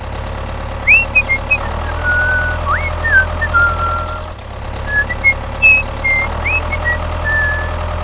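Truck engine running steadily at idle, with a series of short high whistled chirps over it, some sliding upward before holding a note.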